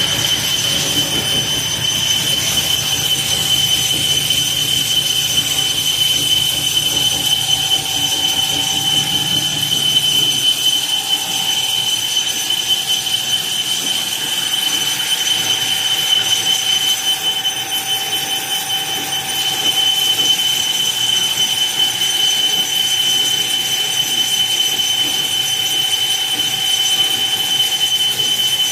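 A 40 mm drill bit cutting into X12 high-chromium tool steel with a steady, high-pitched squeal. A low rumble under the squeal drops away about ten seconds in, and a fainter lower tone comes in around the same time.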